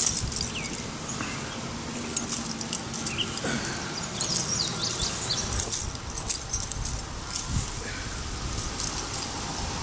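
Rustling of a military surplus parachute's nylon and suspension lines being rolled out over long grass, with repeated jingling from keys on a belt as the person bends and moves.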